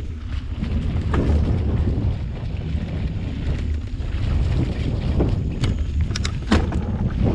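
Wind buffeting the microphone of a camera on a moving mountain bike, over tyres rolling on a dirt trail strewn with dry leaves. A few sharp clicks and rattles from the bike come about a second in and again near the end.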